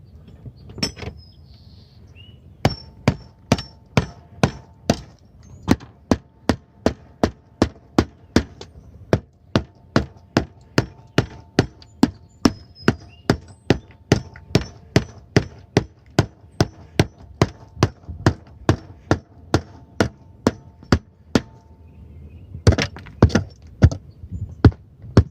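Hammer blows beating down the old roofing material built up around a gutter drain outlet, repeated about two to three strikes a second. Near the end a few harder, louder blows land.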